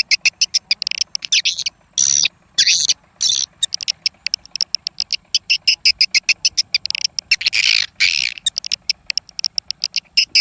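Swiftlet calls from a swiftlet-house lure recording: a fast run of sharp high clicks, about eight a second, broken by short twittering chirps and a longer trill about seven seconds in.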